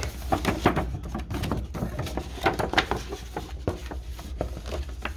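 Folded paper poster being unfolded by hand: irregular rustling and crinkling of the paper, busiest in the first few seconds.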